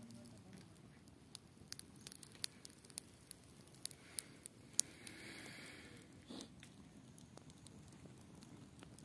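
Small wood campfire crackling: sharp, irregular pops and snaps, thickest in the first half, over a faint low background hush.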